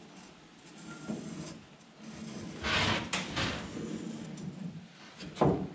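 Wooden scribing stick and marker being slid and rubbed along a plywood board and the boat's floor. The scraping comes in bursts about two and a half to three and a half seconds in, with a short, louder scrape near the end.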